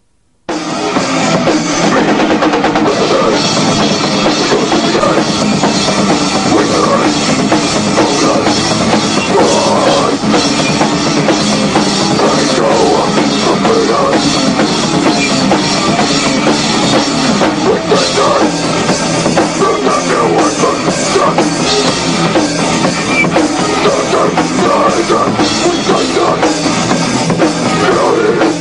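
Metal band playing loud on electric guitars and a drum kit. The music starts suddenly about half a second in and runs on without a break.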